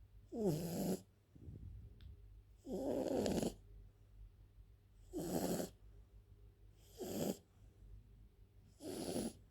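French bulldog snoring in its sleep: five loud snores about two seconds apart, each half a second to a second long.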